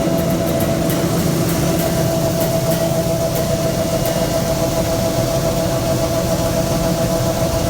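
Heavy farm machinery engine running steadily, with a constant mid-pitched whine over a low rumble.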